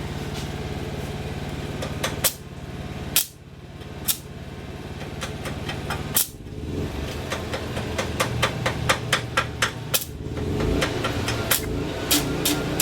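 Stick (arc) welding with 7018 rod: a steady low hum, a few separate sharp cracks, then the arc crackling quickly and unevenly from about seven seconds in. The rod is, as the welder puts it, probably a little damp, which makes it hard to get burning.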